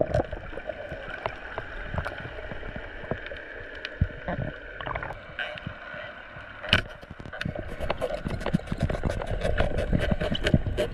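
Underwater sound heard through a camera housing while spearfishing over seagrass: a steady hum that fades in the middle and comes back stronger near the end, with many sharp clicks and crackles and a couple of louder knocks, one about four seconds in and one near seven seconds.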